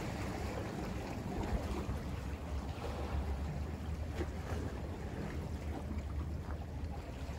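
Wind rumbling on the microphone over the wash of sea waves, steady throughout.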